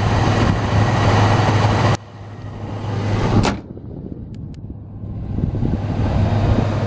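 Ford F-150's 5.4-litre V8 idling with a steady low hum and a hiss; the sound drops away about two seconds in, a single loud thump comes at about three and a half seconds, and the idling sound builds back up near the end.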